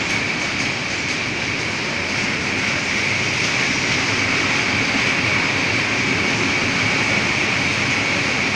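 Freight train of open-top wagons rolling past close by: steady rolling noise from the wheels on the rails, with a steady high ringing tone over it.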